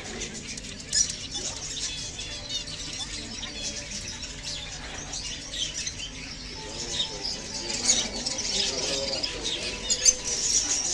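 Parrots chirping and chattering in a steady run of short, high squeaks, with scattered sharp clicks and a busier stretch of chatter about two-thirds of the way in.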